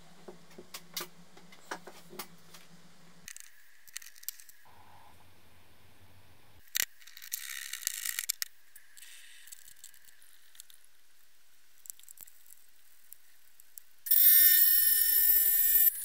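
Light metallic clicks and rattles of a small cast-iron drill-press vice and its jaw plates being handled and taken apart, with one sharp click about halfway. Near the end a loud, high-pitched machine whine starts suddenly and runs for about two seconds.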